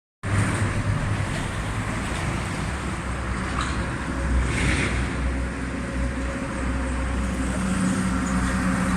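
Steady engine and traffic noise: a continuous low rumble with faint steady hums over it.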